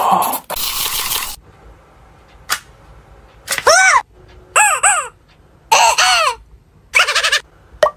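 Rubber chicken squeezed, giving a series of short squawks that rise and fall in pitch, about five in the second half. A brief burst of noise comes first.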